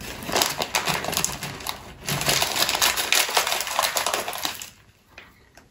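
Crinkling and rustling of a Marabou Non Stop candy bag as fingers rummage inside it for a sugar-coated chocolate, in two spells with a brief pause about two seconds in, stopping shortly before the end.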